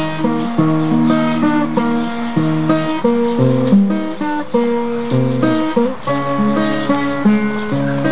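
Music: an acoustic guitar playing a steady chord pattern, the instrumental intro of a slow love song.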